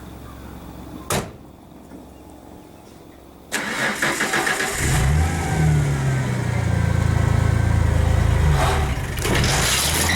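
Old Ford truck engine cranking and catching a few seconds in, then running with the revs rising and falling. A sharp click comes about a second in, before the engine starts.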